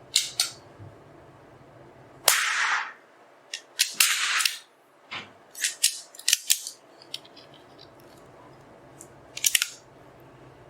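Anschutz 1903 .22 LR target rifle fired once about two seconds in, with a second loud burst soon after. Sharp metallic clicks of the bolt and action being handled come before and after.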